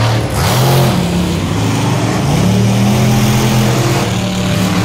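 Monster truck engine revving loudly, its pitch climbing about two seconds in and holding high.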